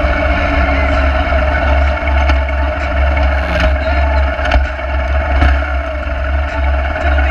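Motorcycle running steadily at road speed: engine note with a strong, steady low rumble of wind over the bike-mounted camera's microphone.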